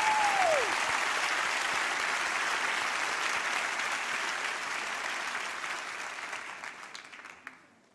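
A large audience applauding, with one cheer from the crowd gliding down in pitch just after the start. The clapping dies away near the end.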